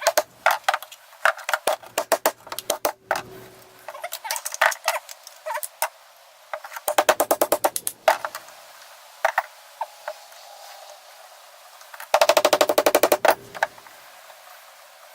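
Runs of rapid, sharp clicks from a tool working on a satellite LNB's housing: scattered clicks at first, then two even rapid runs, one near the middle and a louder one near the end.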